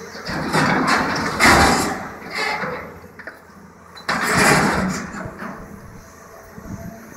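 Demolition excavator's hydraulic shear crushing and tearing metal and debris, with the machine's engine running underneath. There are two bouts of crunching and scraping: a long one of several surges starting just after the start, and a shorter, sharp one about four seconds in.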